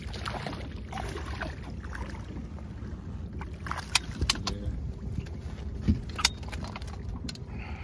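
A hooked bass splashing at the surface beside an aluminum boat and being scooped into a landing net. A few sharp knocks come about halfway through as the net and fish come aboard against the hull, over a steady low rumble.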